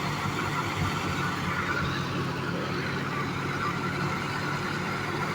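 Tractor-powered wheat thresher running steadily: a constant engine drone with a higher, even whir on top.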